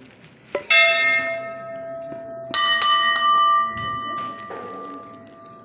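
Hand-rung Hindu temple bells: one bell struck once about half a second in and left ringing, then a higher-pitched bell struck several times in quick succession about two and a half seconds in, its ringing fading slowly.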